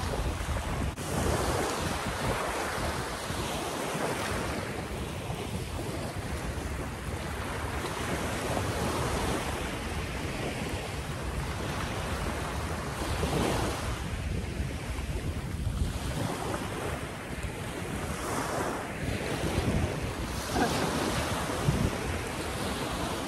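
Small waves breaking and washing up a sandy beach, the surf rising and falling every few seconds, with wind buffeting the microphone in a low rumble.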